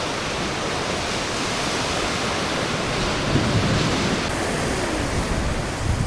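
Ocean surf washing on the beach, a steady rushing noise with wind on the microphone, swelling a little around the middle.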